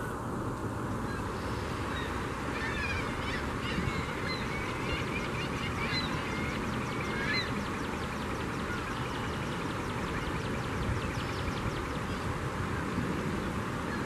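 Gulls calling in a feeding frenzy over the river: short, high, rising and falling cries, thickest in the first half. A steady rushing background runs under them.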